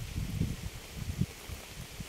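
Rain falling as a steady even hiss, with irregular low rumbles under it.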